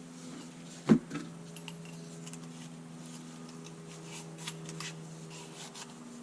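Small metal parts being handled and fitted by hand: a sharp clunk about a second in, then light clicks, taps and rubbing of metal, over a steady hum.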